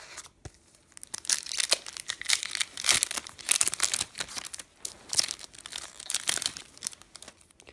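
Foil trading-card booster pack wrapper crinkling and tearing as it is opened by hand: a dense run of sharp crackles starting about a second in and dying away near the end.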